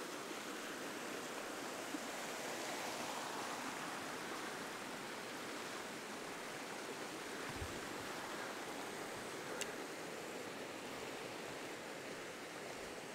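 A snowmelt-fed mountain stream running with a steady rush of water, with a faint tick or two.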